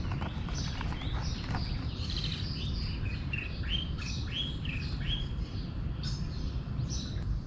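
Small songbirds chirping over and over, with a run of four clear, slurred notes in the middle, over a steady low rumble.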